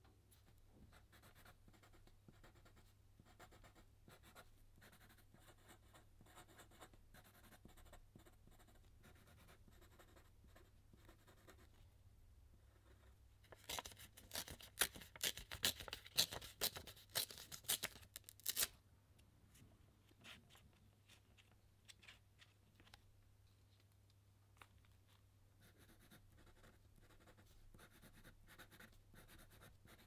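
Faint scratchy strokes on paper, then about 14 seconds in a sheet of paper is torn by hand in a loud crackling run of rips lasting about five seconds. Near the end, a felt-tip marker scratches across paper as letters are written.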